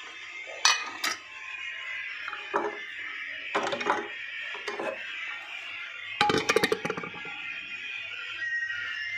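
Background music, with several sharp metallic clinks and knocks from an aluminium pressure cooker pot being handled, and a quick cluster of them about six seconds in.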